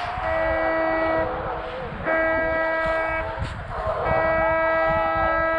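Hunting horn blown in three long blasts of about a second each, all on one steady note, with short gaps between them. Hounds holding a boar at bay give voice behind the horn. The horn is part of the noise the hunters make to keep the boar from crossing the road.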